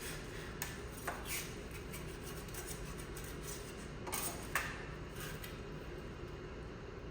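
Hand woodworking tools: a few short scrapes and knocks, the strongest about four and a half seconds in, over a steady low rumble.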